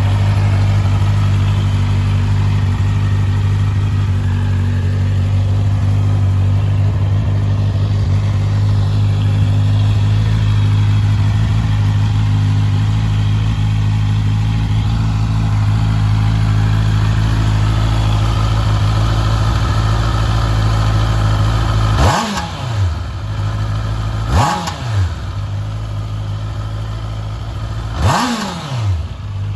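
Honda CBR650R's inline-four engine idling steadily just after starting. Near the end come three quick throttle blips a few seconds apart, each revving up and dropping straight back to idle.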